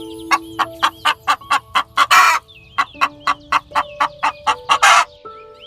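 Domestic hen clucking in a quick run of short clucks, about four to five a second. Louder, harsher calls come about two seconds in and again near the end.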